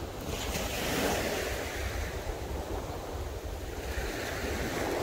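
Sea waves washing onto a pebble shore, swelling twice, with wind rumbling on the microphone.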